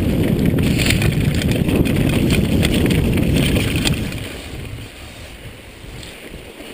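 Wind buffeting the camera microphone, with tyre rumble and chain and frame rattle from a Jamis Dakar XAM mountain bike descending a dirt singletrack at speed. About four seconds in it turns much quieter as the bike slows.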